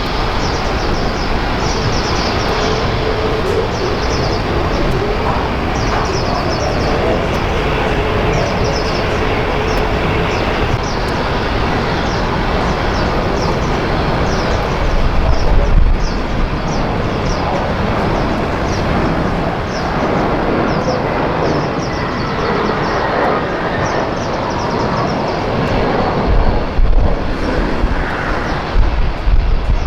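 Jet aircraft engines running as a loud, steady rush of noise, swelling louder around the middle and again near the end.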